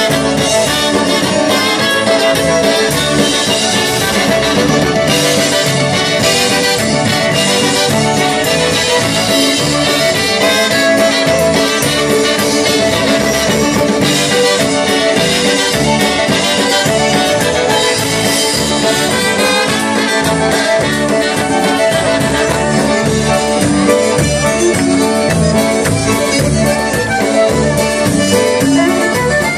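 Live polka band playing an instrumental passage: trumpets, fiddle and accordion over a steady beat.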